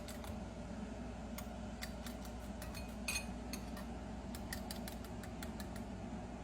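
Irregular light clicks and taps of kitchen utensils and dishes being handled, with one brief ringing clink about three seconds in, over a steady low hum.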